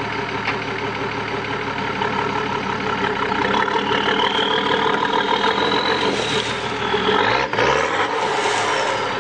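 Nissan Patrol 4x4's engine idling, then pulling harder as the truck crawls up over rocks, with a short rev about seven seconds in. A high whine rises and falls over the engine in the second half.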